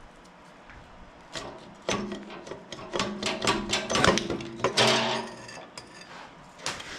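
Metal clinks, knocks and rattles of tractor parts being worked loose and pulled apart by hand, some with a short metallic ring. They come in a dense run starting about a second and a half in and thin out near the end.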